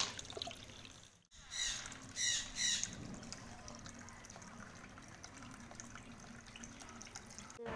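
Water trickling steadily from a terracotta pot into a pebble-filled basin of a homemade tabletop fountain. About one and a half seconds in come three short, high chirps, the loudest sounds here.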